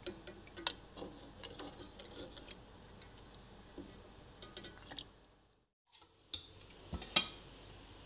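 Steel ladle clinking and scraping against a cooking pot while meat and gravy are scooped out, a few light scattered clicks. The sound drops out completely for about a second just after the middle.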